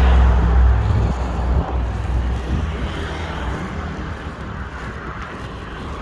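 Road traffic: a vehicle's low engine rumble, loudest at the start and fading over the first two seconds as it passes, then steady traffic noise.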